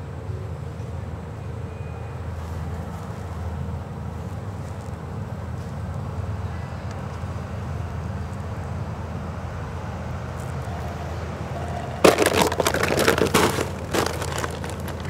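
Steady low outdoor hum. About twelve seconds in it is broken by roughly two seconds of loud, dense crackling.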